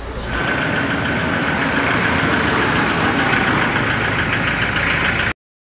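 Engine of a 1991 vintage open jeep running while it is driven: a steady drone with a steady high whine on top. It cuts off suddenly near the end.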